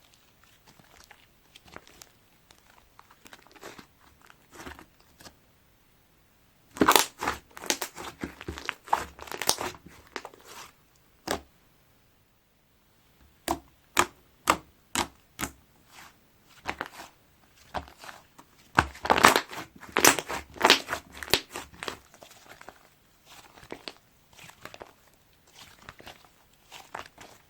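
Hands squeezing and stretching mint ice-cream slime with colourful clay being mixed in, giving quick crackling pops and clicks. The pops come in dense bursts about seven and nineteen seconds in, with a brief pause and then a string of single pops between them.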